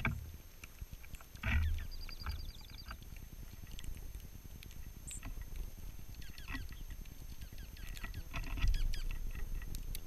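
Small birds at a snowy seed feeder: a short rapid high trill about two seconds in, with scattered rustles, pecks and wing flutters as dark-eyed juncos land and feed. Low rumbling bumps on the microphone come about one and a half seconds in and again near the end, the later one the loudest.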